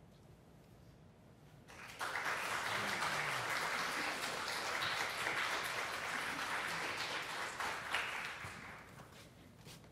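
Audience applauding, starting suddenly about two seconds in after a short hush and dying away over the last second or so.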